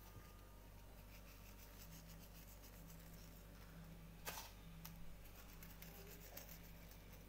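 Near silence: faint room tone with a low steady hum, and one brief click about four seconds in followed by a few fainter ticks.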